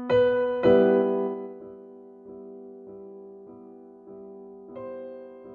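Gentle solo piano music, a track from the Classical category of YouTube Create's free music library. Two loud chords open it, then softer notes follow about every half second, each ringing and fading.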